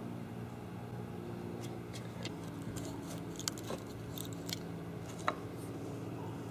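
Small scattered clicks and scratches of fingers picking a deformed bullet slug out of a splintered wooden stud, over a steady low hum.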